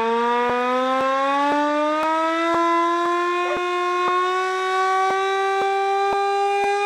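Hand-cranked air-raid siren wailing, its pitch climbing slowly as it winds up, with faint ticks about twice a second.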